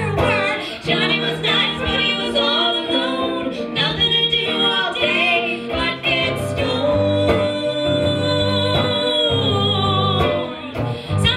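Live comedic song: women singing over a strummed hollow-body electric guitar, with the voice holding one long note for a few seconds late on.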